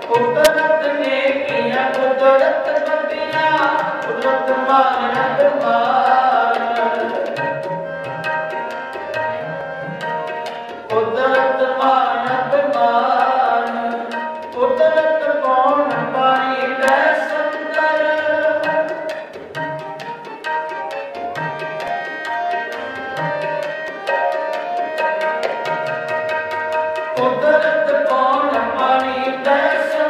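Sikh kirtan accompaniment: harmoniums playing a sustained, reedy melody over a steady run of tabla strokes.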